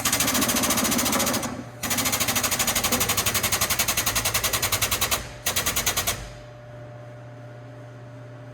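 Pneumatic impact wrench hammering in three bursts: a short one at the start, one of about three seconds, then a brief one that stops about six seconds in. A steady low hum runs underneath.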